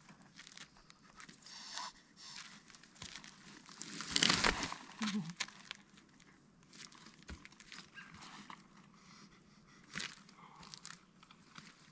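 Footsteps crunching unevenly on a hiking trail, with a louder crunch about four seconds in.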